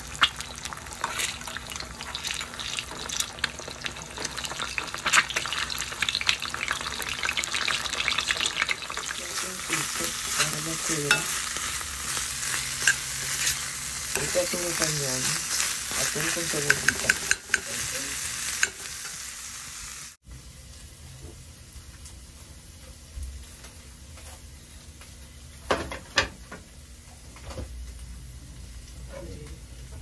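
Hot oil sizzling and crackling in a cast-iron skillet, first around a frying egg and then as tuna and onion are stirred with a metal spatula. About twenty seconds in the frying cuts off abruptly, leaving a quiet kitchen with a few light knocks.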